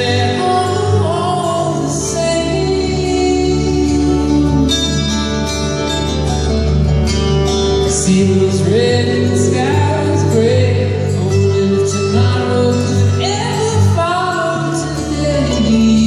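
Live acoustic string band playing a song: mandolin, two acoustic guitars and upright bass, with sung vocals.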